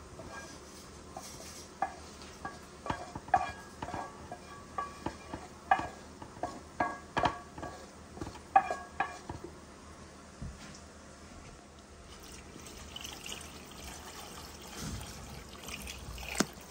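Chunks of tomato, onion, garlic and chile dropped into a plastic blender jar, a run of about fifteen short knocks that ring briefly through the first half. Near the end, water is poured into the jar in a soft steady stream.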